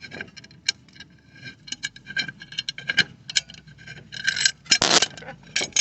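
Metal tools and brake parts being handled, with scattered light clinks and a louder scrape near the end.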